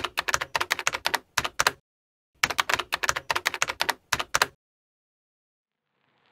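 Typing sound effect: two quick runs of key clicks, about six keystrokes a second, with a gap of about half a second between them.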